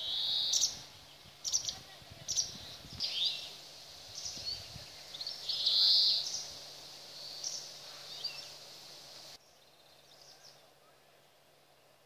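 Small songbirds calling in a series of short, high chirps and brief trills, loudest just after the start and again around six seconds. The sound drops abruptly to faint after about nine seconds.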